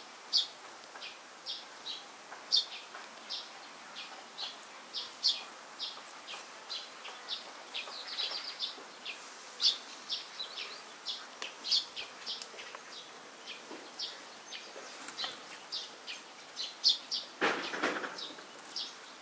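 Birds chirping: a steady run of short, high chirps, two or three a second, over faint background noise. Near the end there is a brief, low rush of noise.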